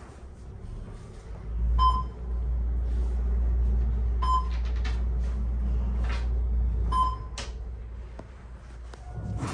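Schindler 500A traction elevator car in travel: a steady low rumble from the ride, which fades out near the end. Three short electronic beeps sound about two and a half seconds apart as the car moves.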